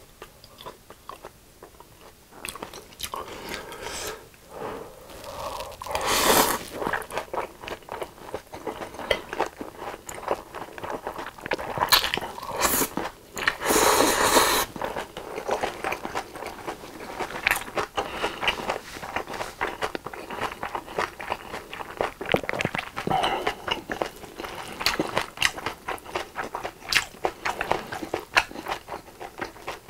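Close-miked eating of japchae, Korean glass noodles stir-fried with beef and vegetables: chewing with many small mouth clicks throughout. Loud noodle slurps come about six seconds in and again from about twelve to fourteen seconds in.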